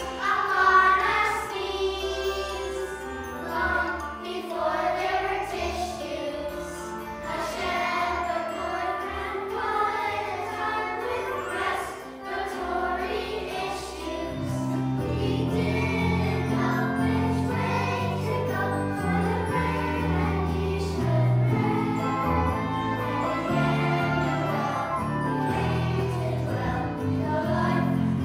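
A choir singing a Christmas song with instrumental accompaniment; a low bass line joins in about halfway through.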